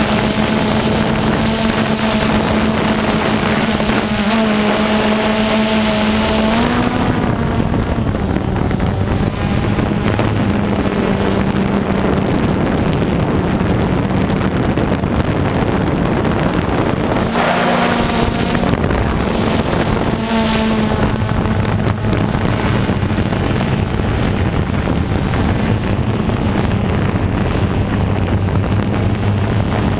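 Multirotor drone's electric motors and propellers humming steadily, their pitch shifting a few times as the rotor speeds change.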